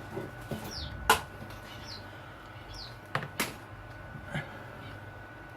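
A few sharp knocks and clicks from handling objects, the loudest about a second in and a quick pair near the middle, with short high falling chirps in the background.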